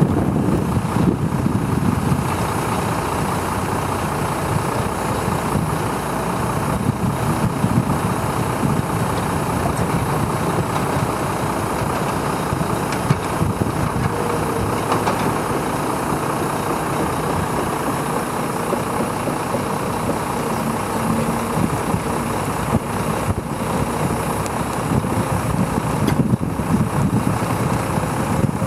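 Volvo 180D tracked excavator's diesel engine running steadily as the machine swings and lifts its boom and bucket, heavier near the start and again near the end, with a faint whine now and then.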